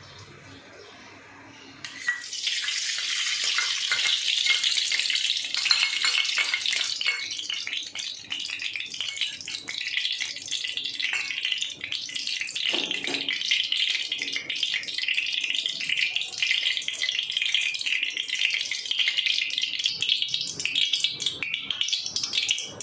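Ghee sizzling and crackling in a hot kadhai. It starts suddenly about two seconds in as the ghee hits the pan, then keeps up a dense, steady crackle while it melts.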